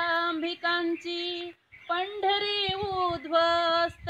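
A woman singing without accompaniment, holding long steady notes, with a short break about one and a half seconds in.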